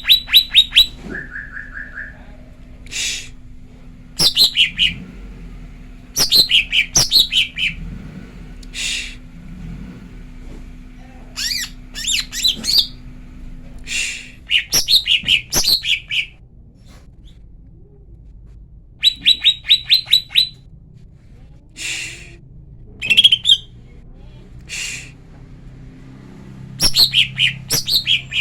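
Female green leafbird (cucak ijo) calling in short clusters of rapid, sharp chirps, some notes sweeping downward, with pauses of a second or two between bursts. It is a lure call meant to rile up male leafbirds.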